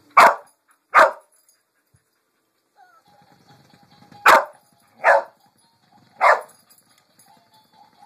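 An Australian Shepherd, a deaf dog, barking at a motorized pig-shaped Bumble Ball toy: five short, sharp barks, two about a second apart near the start, then three more between about four and six and a half seconds in.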